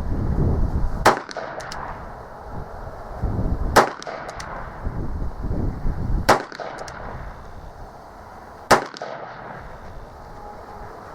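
Four shots from a .45 Long Colt Uberti 1875 Schofield single-action revolver, about two and a half seconds apart. Wind rumbles on the microphone between them.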